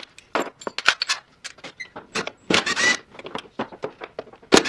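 Cordless drill-driver spinning out the plastic fan-shroud screws in two short whirring bursts, about two and a half seconds in and near the end, among light clicks and knocks of the tool and plastic being handled.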